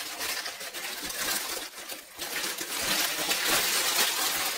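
Packaging rustling and crinkling by hand, with many small hard clinks of baked-clay pieces, some of them broken, knocking together as the parcel is unpacked.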